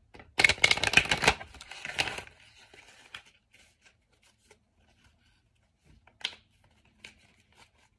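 A deck of oracle cards being shuffled: a rapid flurry of card riffling for about two seconds near the start, followed by a few faint clicks.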